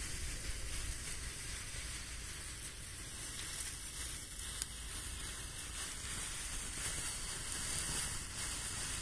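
A big Diwali snake tablet burning with a steady sizzle, with a single small tick about halfway through.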